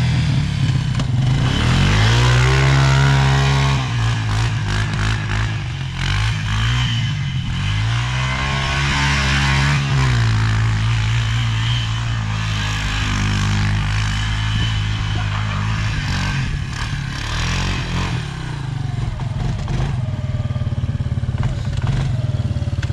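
ATV engine revving hard and easing off several times, its pitch climbing and dropping in repeated swells, with some rattling.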